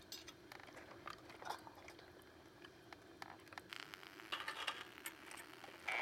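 Burning charcoal crackling in a metal fire bowl: scattered small pops and ticks, growing busier and louder in the second half.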